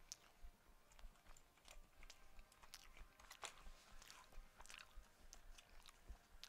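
Faint chewing: soft, irregular mouth clicks and smacks of someone eating.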